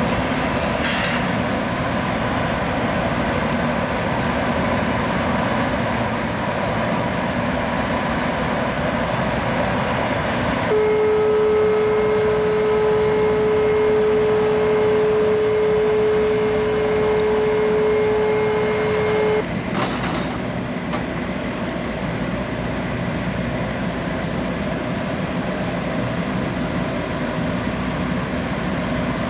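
Steady rushing of a Boeing 929 jetfoil's gas turbines and water jets. A single long, steady horn blast of about eight seconds sounds near the middle and cuts off sharply.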